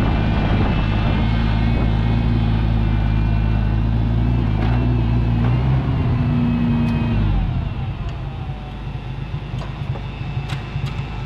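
Oliver 880 gas tractor engine running steadily, then about seven seconds in its pitch falls and it gets quieter.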